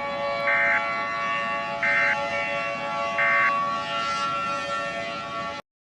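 Electronic siren-like alarm tone in a mock emergency-alert broadcast: a steady, many-toned drone with three short higher beeps about 1.4 s apart. It cuts off abruptly near the end.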